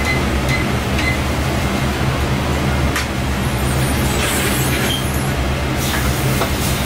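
Steady low mechanical hum, with a few light metal clinks as the steel lids on top of a can oven are handled.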